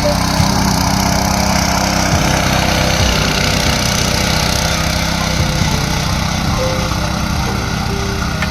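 Small engine of a four-wheel power weeder running steadily.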